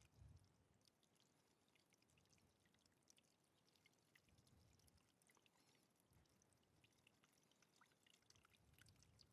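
Faint trickling and dripping of water running out of a radiator's drain hole as the cooling system is flushed with clean water to carry the old coolant out. A brief soft low thump comes just after the start.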